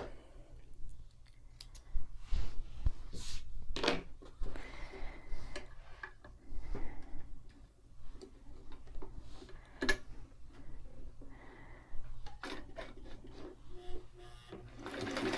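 Handling noise at a sewing machine: fabric being moved and rustled under the presser foot, with scattered light clicks and knocks from adjusting the machine, over a faint low hum. Just at the end the White 173's motor starts to run.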